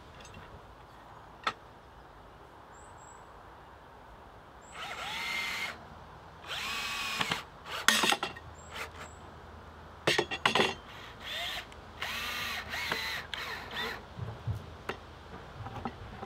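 Power drill driving screws into wood in a series of short runs starting about five seconds in, each whining up to speed and winding back down.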